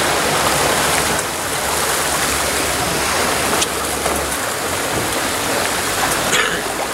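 Steady rushing, splashing water of a sportfishing boat's churning wake at the stern while under way, over a low hum from the boat that drops away about four seconds in.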